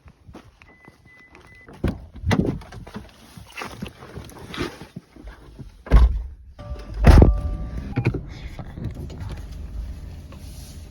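Getting into a car: handling noises, then two car doors shutting with heavy thunks about six and seven seconds in, the second with a short chime, followed by a low steady rumble inside the car.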